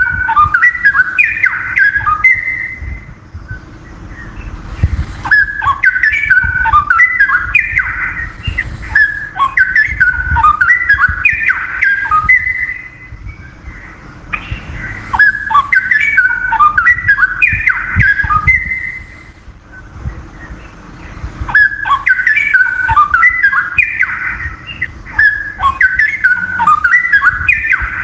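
Straw-headed bulbul singing loud runs of quick whistled notes that jump up and down in pitch. It sings in four bouts of several seconds each, with pauses of about two seconds between them, over a faint steady hum.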